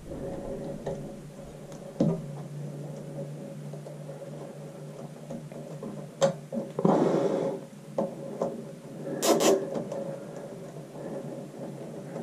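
Plastic zip ties and wiring being handled overhead: scattered clicks and rustling, and about nine seconds in a short ratcheting zip as a zip tie is pulled tight around a wire bundle, over a faint steady hum.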